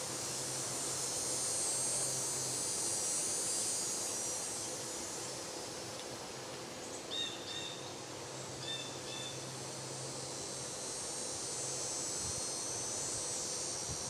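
Outdoor ambience: a steady high hiss that swells and fades, over a faint low hum. A few short bird chirps come a little past halfway.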